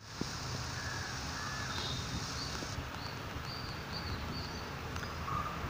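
Steady outdoor background noise with a low hum, and a few short, faint bird calls, most of them a little past the middle.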